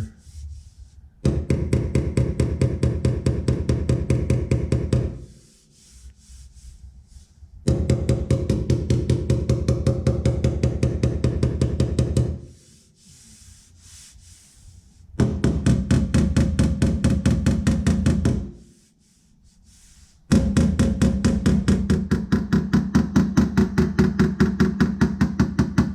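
Body hammer tapping sheet metal on the Suburban's repaired panel in four bursts of quick, even taps, about four a second, with short pauses between. The blows knock down high spots in the metal.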